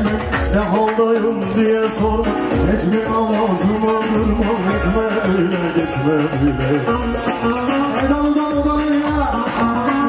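Live Turkish folk dance music: a bağlama (saz) and electronic keyboard playing a melody over a steady drum beat.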